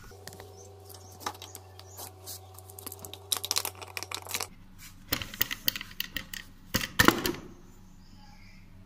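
A run of small clicks and taps from metal parts being handled as a scooter's front alloy wheel is worked back over its drum brake panel, with a couple of louder knocks in the second half.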